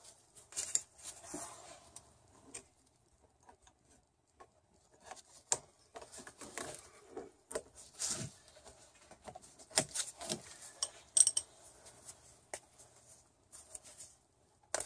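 Small irregular metal clicks and scrapes from hand-fitting the retaining spring onto a socket ratchet, with a sharp click about eleven seconds in.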